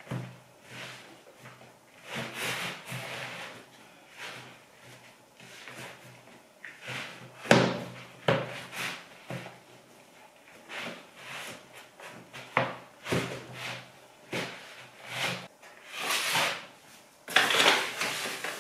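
Hands kneading hot-water dumpling dough in a plastic bowl: irregular squishing and rubbing, with occasional sharp knocks, the loudest about seven seconds in. Near the end, a paper flour bag rustles as a hand reaches into it.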